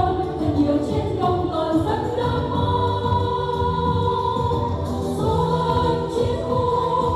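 A group of women singing a Vietnamese song in chorus through microphones, holding long notes, over instrumental accompaniment.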